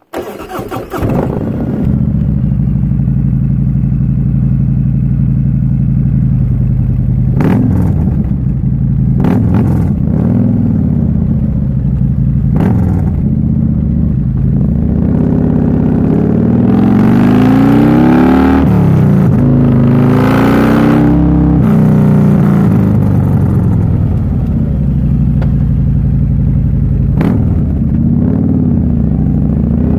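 Harley-Davidson Road Glide's Milwaukee-Eight V-twin running through a D&D Billet Cat exhaust, with a prototype Andrews cam. It comes in suddenly right at the start and runs steadily, and from about sixteen seconds in the revs rise and fall several times. A few sharp clicks are heard along the way.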